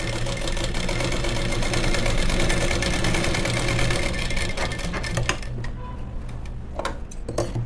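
Sewing machine stitching a seam through blouse fabric, running at an even fast rate, then stopping about five seconds in; a few light clicks follow.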